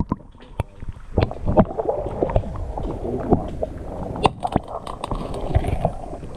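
Water sloshing and gurgling in an ice-fishing hole, with many sharp knocks and bumps from handling close to the microphone as a perch is released down the hole.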